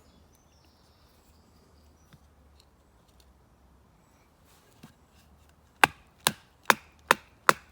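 Five sharp knocks, evenly spaced at about two to three a second, starting near the end: a baton striking the spine of a bushcraft knife to drive it through a piece of hard beech (batoning). Before them only faint small clicks.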